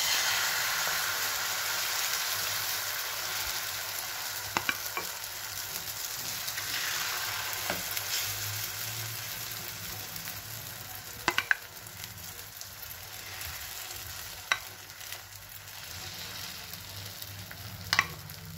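Beaten egg with chopped vegetables sizzling in hot refined oil in a nonstick frying pan. The sizzle is loudest as the batter goes in and slowly dies down, with a few sharp taps of the spatula against the pan.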